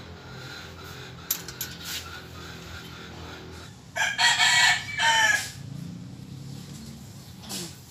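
A rooster crows once, loud, about four seconds in, a call of about a second and a half that falls in pitch at the end. Before it come a few light clicks of the clutch disc and pressure plate being handled.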